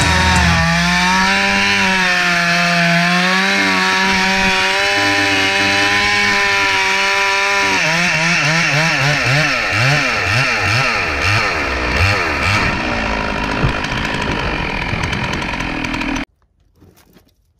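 Large chainsaw in an Alaskan chainsaw mill ripping a board off a stump, the engine running at full speed under load. About halfway through, its pitch starts wavering rapidly up and down, and the sound cuts off abruptly near the end.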